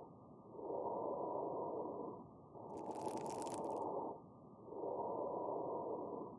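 Abnormal lung sounds: three breaths in and out, with fine high-pitched crackles (rales) during one of them, about three seconds in. Fine crackles like these are heard mainly on the breath in.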